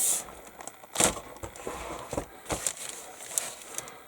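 Plastic kit bag crinkling and rustling as plastic sprues are handled, with a few sharp clicks, the loudest about a second in.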